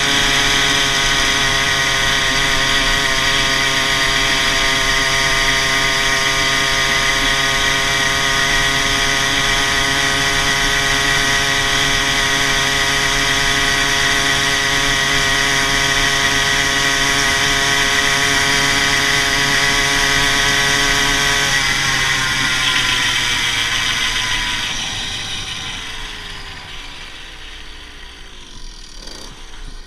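Ported GT5 two-stroke motorized-bicycle engine running at high, steady revs under way. About three-quarters through it comes off the throttle and the pitch winds down as the bike slows.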